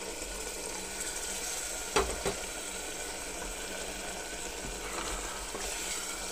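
Keema, pea and potato curry sizzling in an aluminium pressure cooker as water is poured in and stirred with a metal spatula. Two sharp knocks come about two seconds in.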